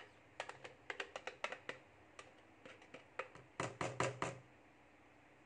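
Plastic blender jar being handled and taken apart: a run of small hard clicks and knocks, with a louder quick cluster of knocks about three and a half seconds in.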